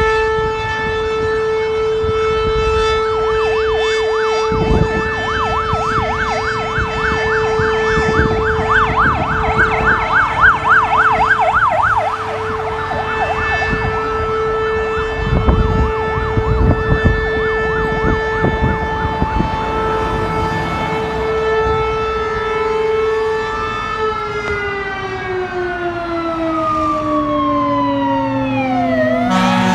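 Fire engines' emergency sirens and air horns: a steady horn tone held for long stretches under an electronic siren that warbles quickly up and down for several seconds, then glides more slowly. Near the end the tones slide steadily down in pitch.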